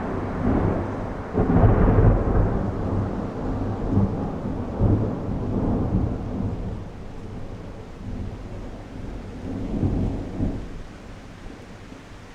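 A long peal of rolling thunder rumbling over falling rain, with several sharper cracks. It is loudest about two seconds in, then dies away near the end, leaving the steady hiss of the rain.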